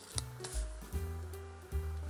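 Background music: held bass notes and higher tones changing every half second or so, with a short sharp click shortly after the start.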